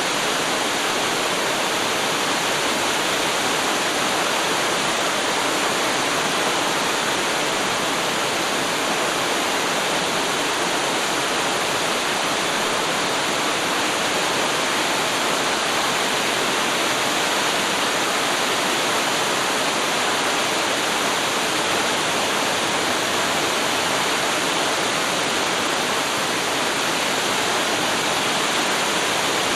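Waterfall pouring steadily, a constant rushing of falling water with no change in level.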